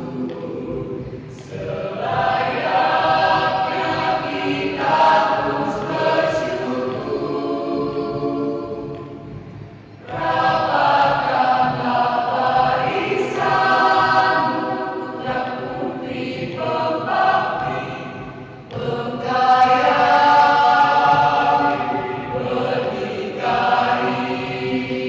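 Mixed student choir singing a regional hymn a cappella in several parts, in long held phrases with short breaths between them, about 10 and 18 seconds in.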